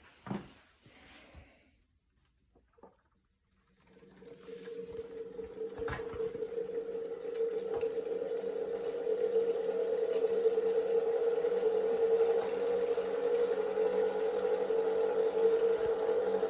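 Wahoo Kickr Move smart bike trainer spinning up as it is pedalled, a steady hum with an unusual rumbling that the owner finds abnormal in the new unit. It builds up over a few seconds and then holds steady, after a single knock near the start.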